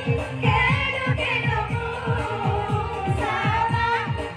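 A woman singing through a PA sound system over live electronic keyboard accompaniment, with a steady programmed drum beat of about four strokes a second.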